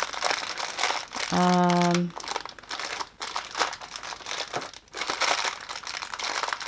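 Crinkling and rustling of a Funko Mystery Minis blind box and the bag inside being handled and squeezed, with many small crackles. A short steady hum from a person's voice comes about a second and a half in.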